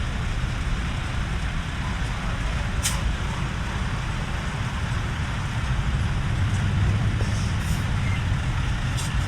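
Large truck engine running with a steady low rumble, with a short sharp click about three seconds in and another near the end.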